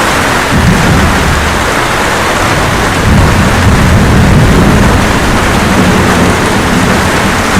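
Steady rain with rolling thunder. The low rumble swells about half a second in and again from about three seconds to six seconds.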